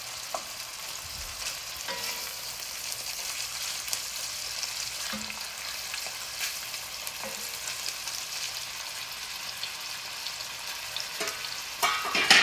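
Beef cubes and onions sizzling as they are seared in an enamelled cast-iron Staub cocotte, with a steady hiss and light scrapes of a wooden spoon stirring them. A louder clatter comes near the end.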